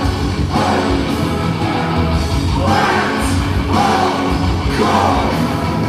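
Symphonic metal band playing live, with a voice singing over the full band.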